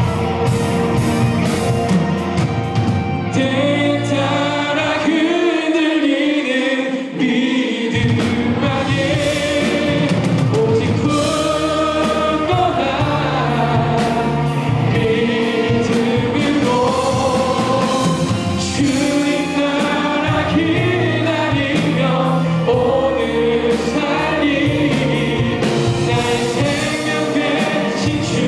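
Live contemporary worship band playing with several voices singing together over piano, keys, guitars, bass and drums; the bass and kick drop out for a few seconds about five seconds in, then the full band comes back.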